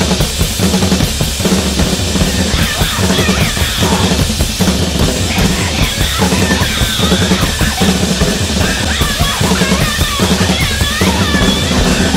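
Loud, fast drumming from several drummers playing together: pounding bass drums, snare hits and rolls over a steady low rumble. Some higher wavering sounds come in about halfway through.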